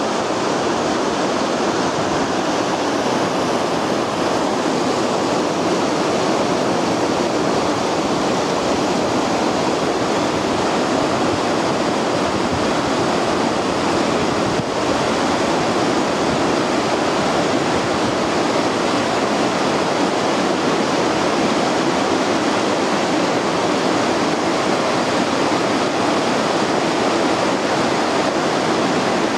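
Fast mountain river running high and brown with floodwater, rushing over rocks and rapids: a loud, steady rush of water.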